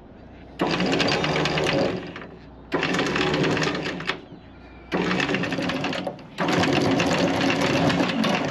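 Deck anchor windlass hauling in anchor chain in four short runs, its motor starting and stopping while the chain links clatter rapidly over the gypsy as the anchor is raised.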